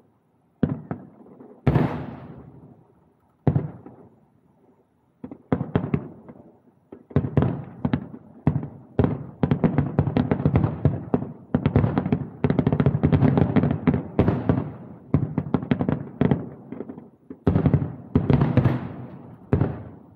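Distant aerial firework shells bursting: separate booms, each trailing off in a rolling echo, then from about seven seconds in a rapid barrage of overlapping bangs lasting some nine seconds, and a few more single booms near the end.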